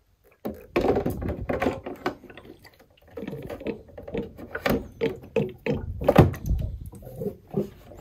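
Filled plastic water tank of a HuPro PRO-773 humidifier being lowered and seated into its base: an irregular run of knocks, scrapes and plastic rubbing on plastic.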